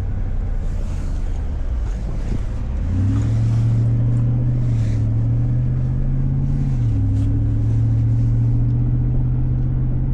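Freshly rebuilt Jeep SRT8 Hemi V8 running under way, a steady low exhaust drone. The engine note rises about three seconds in as it pulls, then steps down a little near seven seconds, with wind noise over it.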